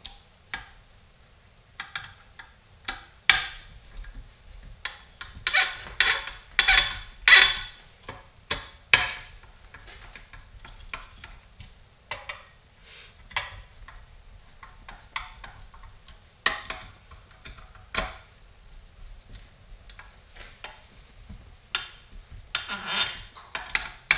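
Hand screwdriver turning the screws of a chainsaw crankcase, giving irregular metallic clicks and scrapes, with small snaps and pops as the halves draw together and the crank bearings slide into place in the heated case. The clicks come thickest a few seconds in and again near the end.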